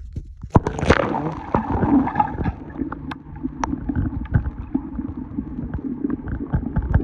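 Water gurgling and sloshing, with many sharp knocks and clicks, starting suddenly.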